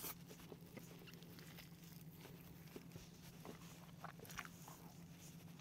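Faint chewing and small mouth clicks of someone eating fried chicken whose coating is not crispy, so there are no loud crunches, over a steady low electrical hum.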